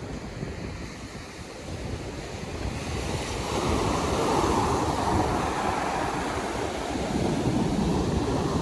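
Atlantic Ocean surf breaking and washing up the beach, swelling about three seconds in and staying strong, with wind rumbling on the phone's microphone.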